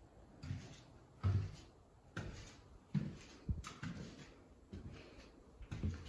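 Footsteps on a bare floor, a low thud about every second, with light handling knocks.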